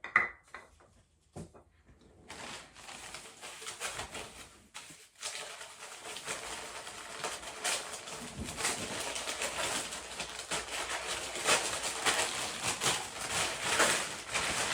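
Packaging rustling and crinkling as wooden toys are unwrapped from bubble wrap, plastic and tissue paper: a few light clicks at first, then continuous irregular crackling from about two seconds in.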